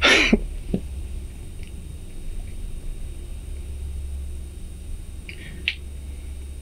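An old man weeping: a sharp, noisy sniffling breath at the start and another short sniff about five and a half seconds in, over a steady low rumble.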